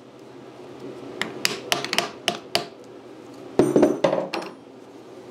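Sharp taps on the Honda CX500 engine with a piece of wood and a block, knocking the engine forward to slide the drive spline off the final drive shaft: about seven quick taps in the first half, then a louder metallic clatter near four seconds in.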